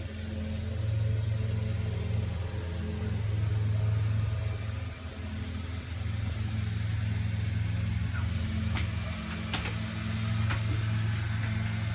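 A steady, low machine hum, like a motor running, that swells and eases a few times. A few light taps come near the end.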